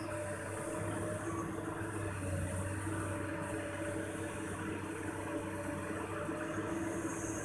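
Diesel engine of an L&T Komatsu long-reach hydraulic excavator running steadily under load while the bucket digs into the soil, a continuous low hum.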